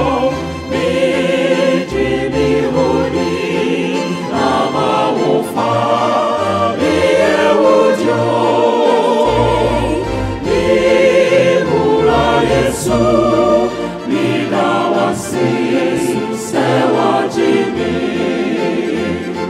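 Mixed-voice choir of sopranos, altos, tenors and basses singing an Adventist choral song in harmony into microphones, with keyboard accompaniment underneath.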